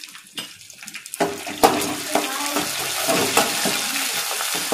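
Tempering of mustard seeds, chana dal, garlic, curry leaves and dried red chillies sizzling in hot oil in an aluminium kadai. From about a second in it is stirred with a metal slotted spoon, whose strokes scrape the pan over the steady sizzle.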